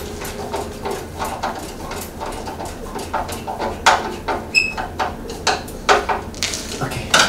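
Scattered knocks, clicks and rattles of hands working on a bandsaw's metal wheel cover and cabinet door, getting louder in the second half, with one brief high squeak about halfway through.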